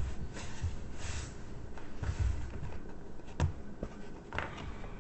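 Rolled diamond painting canvas with its plastic protective film rustling and crinkling as it is unrolled, pressed flat on a wooden table and lifted up, with a sharp click about three and a half seconds in.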